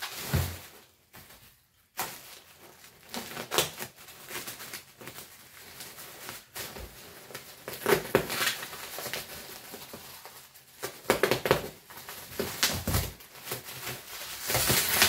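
Bubble wrap crinkling and rustling as a taped bubble-wrap parcel is handled and its packing tape cut and picked at, in irregular crackles and small knocks. There is a short quiet spell about a second in, and the crackling is loudest near the end.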